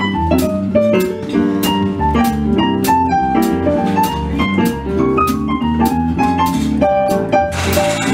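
Roland RD-700 digital stage piano and electric bass playing a jazz tune, with quick runs of short piano notes over a steady bass line. A steady hiss-like noise joins the music near the end.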